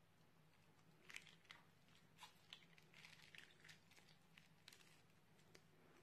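Faint, sticky clicks and crackles of a plastic piping bag pressed and dragged through runny slime glue, a scattering of small wet pops starting about a second in.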